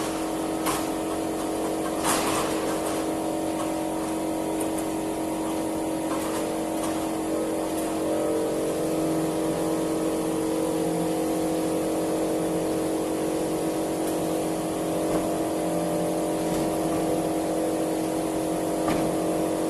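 Steady motor or engine hum held at one constant pitch, with a few sharp clicks and knocks.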